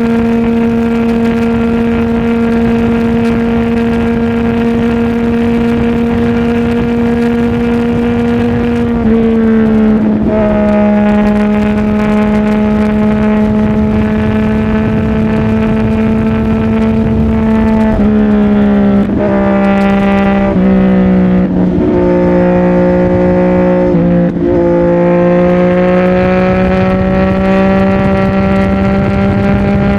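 CFMOTO 675 inline-three engine through a titanium full-system aftermarket exhaust, ridden at a steady pitch. About nine seconds in the pitch steps down, and between about 18 and 25 seconds it breaks off briefly several times and settles lower each time, as with gear changes or throttle lifts. It then climbs gently again.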